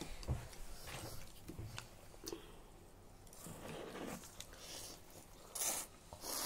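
Two people eating spicy ramen noodles: soft chewing and small clicks of chopsticks against a bowl, then noodles slurped near the end.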